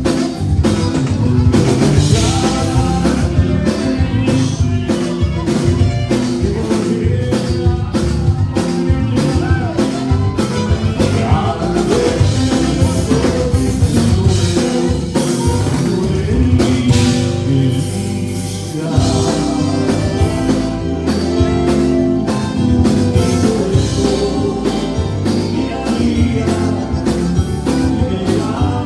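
Live conjunto band playing through a PA: button accordion, electric guitars, bass and drum kit keeping a steady beat, with a man singing lead into a microphone.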